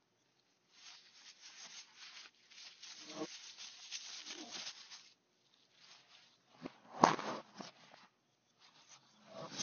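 Toilet paper rustling and crinkling as it is pulled and handled, played backwards, with a brief louder burst about seven seconds in.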